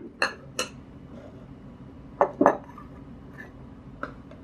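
Amber glass bowls being set down on a wooden table: short clinks of glass, two just after the start and two more about two seconds in, with a fainter tap near the end.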